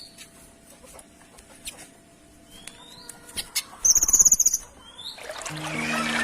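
Songbird (a kinoy) calling: sparse chirps and short rising whistles, then a rapid high-pitched trill about four seconds in. Music with a trickling-water sound fades in near the end.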